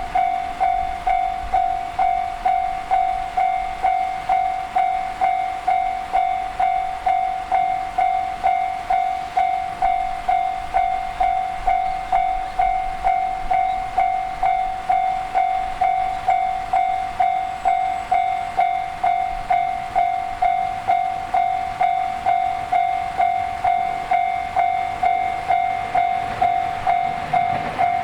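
Japanese railroad crossing warning bell ringing steadily in an even clang, about two strikes a second, signalling that a train is approaching.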